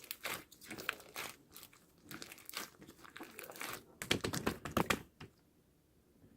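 Plastic packaging crinkling and rustling in irregular bursts as a slime parcel is opened by hand, loudest about four seconds in and stopping about five seconds in.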